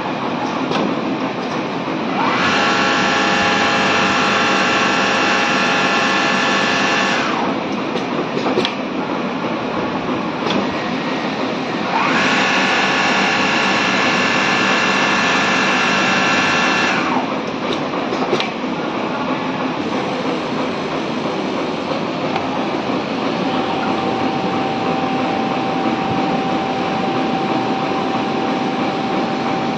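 Richpeace single-head computerized pattern sewing machine running, a steady mechanical drone with a few clicks. Twice, a motor whine rises, holds for about five seconds, and winds down. A steady tone comes in about three quarters of the way through.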